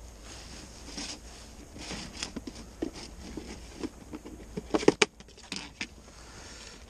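Handling noise from a plastic tackle box being opened and rummaged through: light rustles and small clicks, with a sharp plastic click about five seconds in as the lid comes open.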